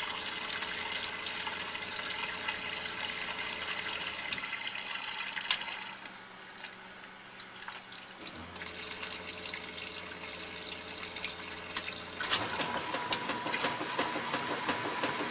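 Water running from hoses into a washing machine tub as it fills, a steady rush over a low hum. The rush thins for a couple of seconds about six seconds in, and a louder hiss takes over about twelve seconds in.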